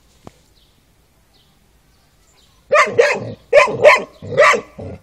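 Šarplaninac puppy barking at a tortoise: a quick run of about five short barks starting a little past halfway.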